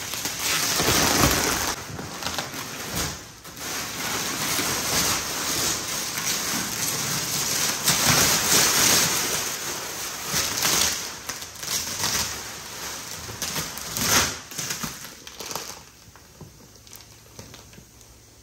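Plastic wrapping rustling and crinkling as a compressed, roll-packed mattress is pulled out and unwrapped, in uneven surges with a sharp crackle about 14 s in. It goes much quieter for the last couple of seconds.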